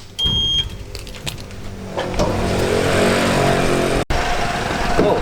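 A car running, with dense low engine and road noise, and a short high beep just after the start. The sound breaks off for an instant about four seconds in.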